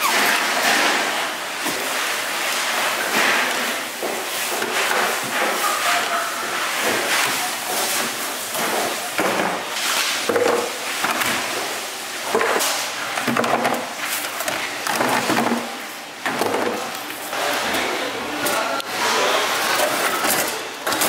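Food-stall kitchen work: irregular knocks and clatter through the whole stretch, with faint voices in the background.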